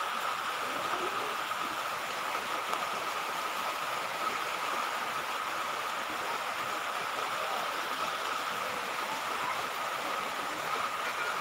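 Steady hiss of rain falling, even and unbroken.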